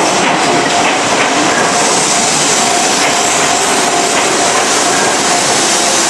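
Electric train passing close at a level crossing, its wheels clacking over the rails in a steady rush of running noise. Through it the crossing's warning bell keeps ringing its repeated electronic tone.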